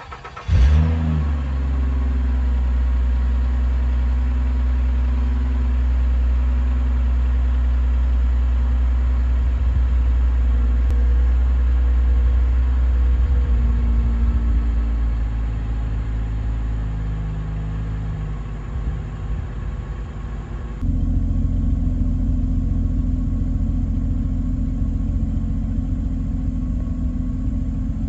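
2007 Lincoln MKZ's 3.5-litre V6 through Flowmaster Delta Flow 40 Series mufflers cold-starting about half a second in with a short rev flare, then settling into a steady cold idle that eases down past the middle. Near the end it is heard right at the exhaust tip, deeper and louder.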